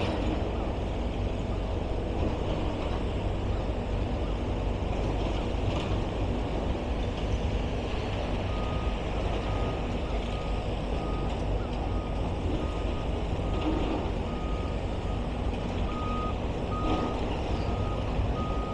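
Steady low rumble of demolition-site machinery. About halfway through, a vehicle reversing alarm starts beeping at an even pace, a little over one beep a second.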